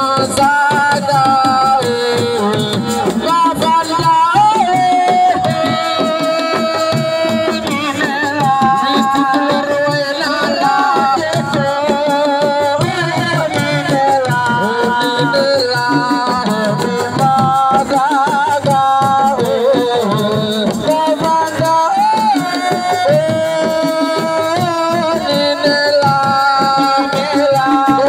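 Assiko band playing live: a lead voice singing a bending melody over fast, dense hand-drum rhythms.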